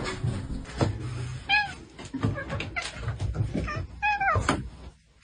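A domestic cat meowing twice, short calls that fall in pitch, the second longer, among light knocks and clatter.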